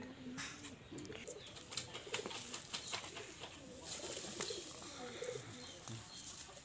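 Pigeons cooing softly, with scattered crinkles and clicks as a polythene-wrapped lychee air-layer root ball is handled and its string untied.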